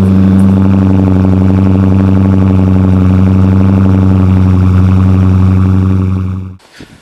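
Dodge Charger Scat Pack's 392 HEMI V8 idling loud and steady just after a cold start; it fades out near the end.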